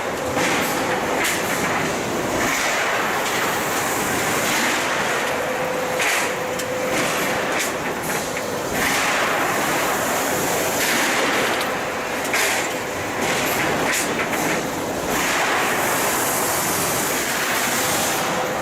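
A 1986 KOHAN steel-coil cut-to-length line running: a steady, dense mechanical clatter with frequent sharp knocks and a faint on-and-off hum.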